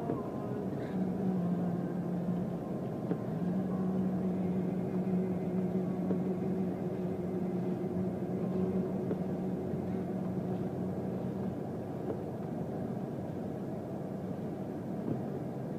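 Rough storm sea and surf breaking against a sea wall, a steady low rumble. A steady low hum runs through it from about a second in and stops a few seconds before the end.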